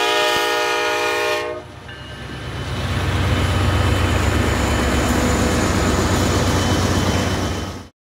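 Canadian Pacific diesel locomotive's air horn sounding several notes together, cutting off about a second and a half in. Then the locomotive rumbles past close by, loud and low, until the sound cuts off suddenly near the end.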